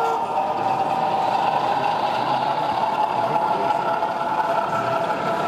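O gauge model of a BR Class 08 diesel shunter running slowly with a train of vans, giving a steady engine-like hum with a few held tones over a background hiss.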